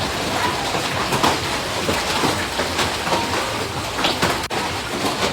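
Steady hiss of heavy storm rain and rushing floodwater.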